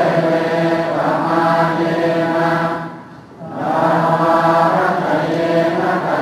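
Buddhist monks chanting in unison on a near-steady pitch, in long phrases with a short break for breath about three seconds in.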